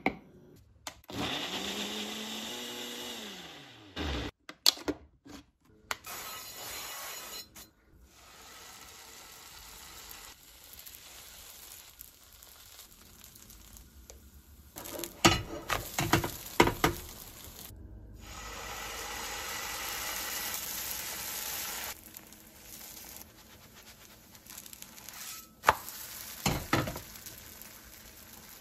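A Ninja personal blender runs briefly on oat, yogurt and basil pesto pancake batter. Its motor tone falls away as it spins down about four seconds in. Later come short bursts of clicks and knocks from utensils on a frying pan.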